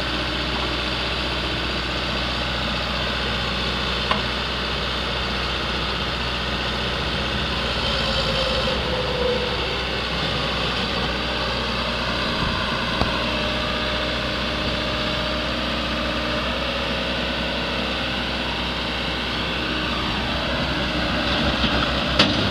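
Case 580L backhoe's diesel engine idling steadily, with a few light clicks and a brief faint whine about eight seconds in.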